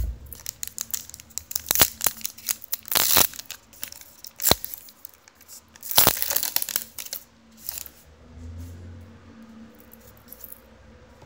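Trading cards being handled on a table: a run of sharp clicks and crinkling rustles, loudest about three and six seconds in, dying down over the last few seconds.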